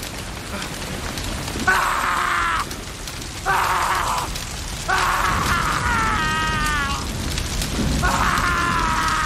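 A man screaming in anguish: four long, high-pitched cries, each sliding down in pitch, with short breaks between them, over steady rain.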